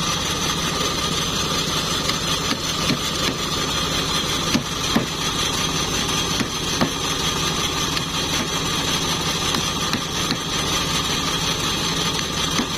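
Homemade bandsaw sawmill running steadily under its engine, cutting teak, with a few short knocks.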